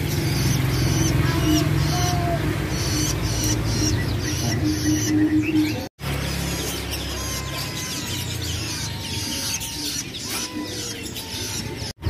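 Young long-tailed shrikes (cendet chicks) chirping and begging in a cage, many short high chirps over a steady low background hum. The sound drops out briefly about halfway through.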